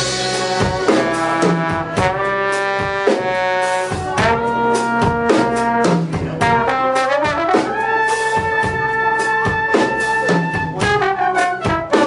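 A small band plays: brass horns hold chords over busy drum hits. About seven seconds in, the horns slide up into a long held chord.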